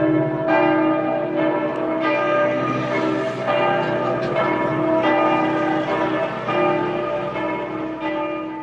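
Church bells ringing a peal, several bells of different pitches struck in quick succession with their tones overlapping, fading out near the end.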